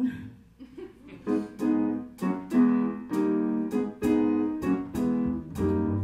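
Live jazz combo playing a song's instrumental introduction: piano chords struck on a steady beat, starting about a second in, with deeper low notes joining near the end.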